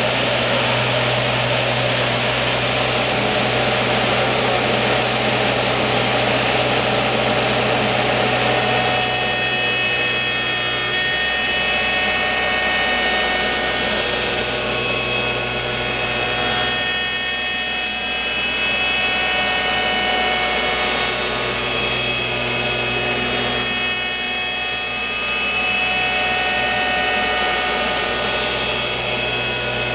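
Lih Woei LH-28-A automatic copy shaping machine running and cutting: its high-speed cutter carves a rotating wooden block into a turned spindle, a steady machine noise over a low motor hum. About nine seconds in, a set of steady high tones joins in as the cut goes on.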